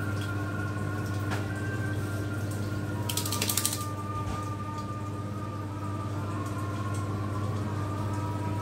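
A wet dog shaking its head about three seconds in, its ears flapping in a quick rattle that lasts under a second. Underneath are a steady low hum and faint background music.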